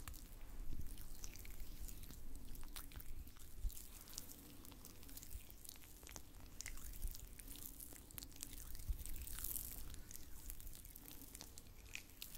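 Hands slick with massage oil rubbing and squishing close to the microphone, making a dense run of small wet, sticky clicks.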